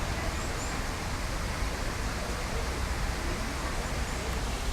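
Steady rushing noise with a low rumble throughout, and two faint high bird chirps about half a second in.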